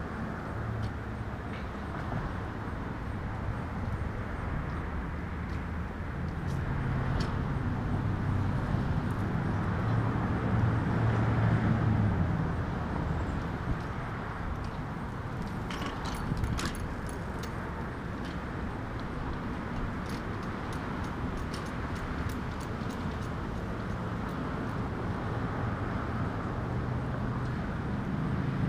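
Steady outdoor road-traffic rumble that swells about ten seconds in, with a scatter of light clicks partway through.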